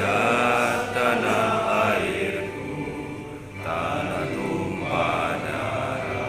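Music with voices singing or chanting together in long held phrases, one in the first couple of seconds and another after a short dip in the middle.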